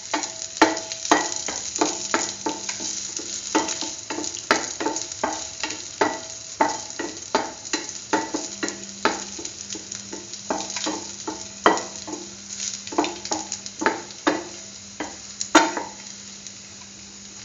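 Raisins sizzling in hot ghee in a stainless steel pan while being stirred, with the utensil scraping and clicking against the pan bottom several times a second.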